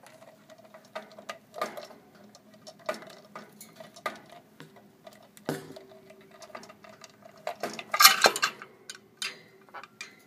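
A sun conure working the locks of a toy treasure chest with its beak: irregular clicks, taps and small knocks, with a louder clattering burst about eight seconds in.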